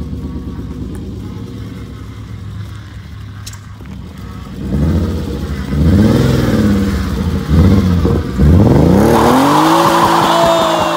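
BMW E36 M3's straight-six engine, with a blown head gasket, idling steadily, then revved hard up and down several times from about five seconds in, climbing into a long held high rev near the end as the rear tyres spin and squeal in a burnout.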